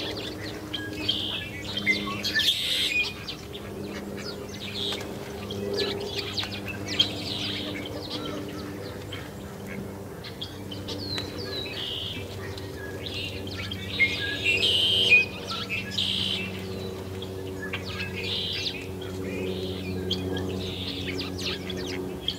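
A flock of small songbirds at a feeder, chirping and twittering over and over in quick short calls, with the busiest, loudest bursts a couple of seconds in and again past the middle. A faint steady low hum runs underneath.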